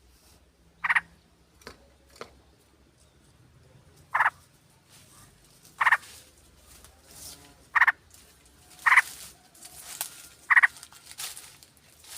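Yellow-vented bulbuls (trucukan) calling: seven short, loud chirps spaced a second or two apart, with fainter chatter between them.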